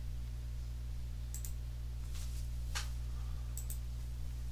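A few light computer-mouse clicks, two of them in quick pairs, over a steady low hum.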